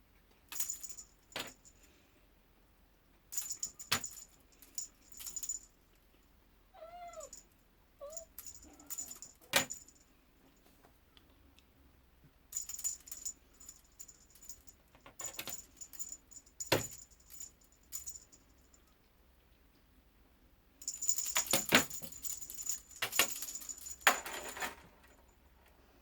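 Kittens on top of a refrigerator: a short meow about seven seconds in and a briefer one right after, amid repeated bursts of light clicking and jingling rattles.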